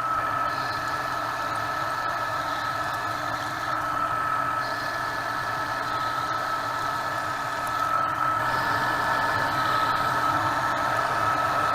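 Metal lathe running steadily while a boring bar cuts inside the bore of a metal ring, with a constant high tone over the machine noise.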